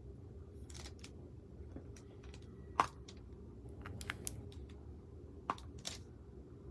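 Diamond painting drill pen tapping small drills onto the adhesive canvas: a series of irregular small clicks, the loudest nearly three seconds in.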